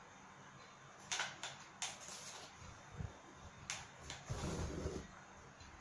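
Cardboard pieces being handled on a work table: a few light knocks and rustles, then a brief scrape about four seconds in.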